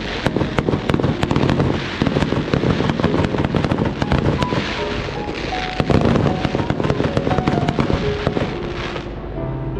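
Fireworks bursting in rapid succession, a dense run of bangs and crackling, with music playing along. The crackling dies away about nine seconds in, leaving the music.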